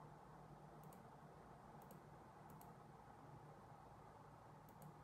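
Near silence with a few faint computer mouse clicks, about five, the last two close together, over a low steady room hum.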